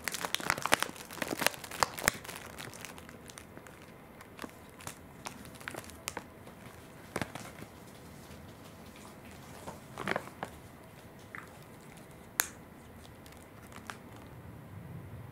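Plastic dog-treat snack bag crinkling as it is handled, densely for about the first three seconds, then in scattered short crackles.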